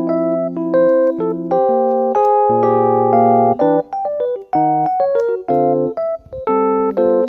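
Background music: a keyboard tune of short notes and chords changing several times a second.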